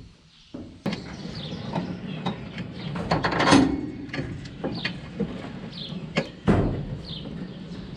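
New Holland 310 small square baler running through a dry tie, its mechanism clanking and knocking over a steady low hum. There is a louder clatter about three and a half seconds in and a sharp knock about six and a half seconds in. Birds chirp briefly.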